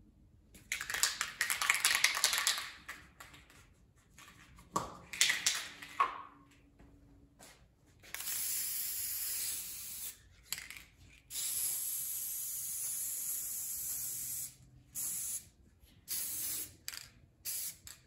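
Elmer's spray adhesive hissing out of its aerosol can onto foam insulation: one spray of about two seconds, a longer one of about three seconds, then several short bursts near the end. Near the start there are a couple of seconds of louder handling noise.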